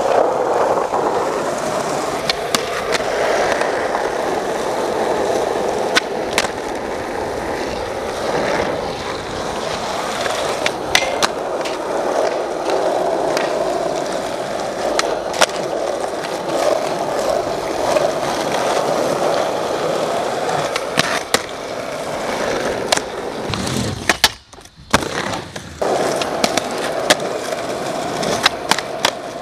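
Skateboard wheels rolling over smooth concrete, with sharp clacks of the board scattered through. The rolling drops out for about a second near the end.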